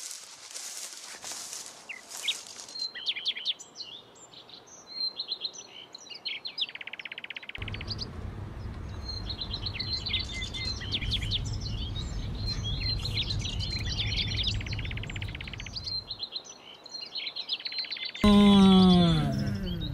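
Songbirds chirping and trilling over and over, with a low steady rumble through the middle. Near the end a loud, drawn-out, falling cry cuts in.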